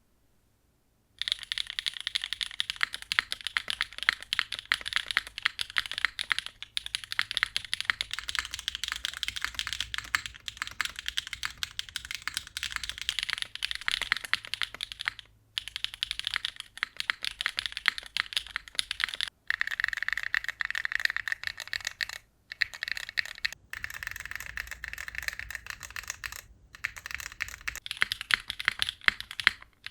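Mechanical keyboard being typed on fast and continuously, a dense clatter of key clicks, starting about a second in and broken by a few brief pauses.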